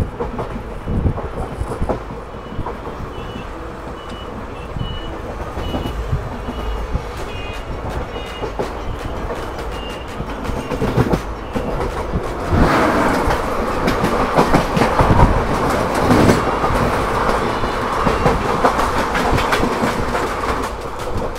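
Passenger train running on jointed track, heard from an open coach door: wheels rumbling and clattering, with a few short high squeaks early on. About twelve seconds in, a train on the adjacent track passes close alongside in the opposite direction, and its rushing noise grows louder than the rest.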